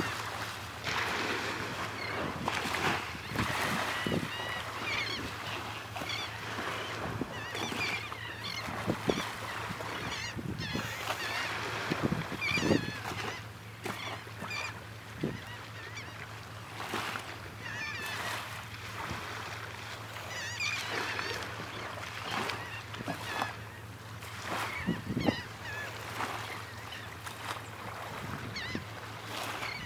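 A flock of water birds calling over and over in short, high calls, over a steady background hiss, with a few brief low bumps.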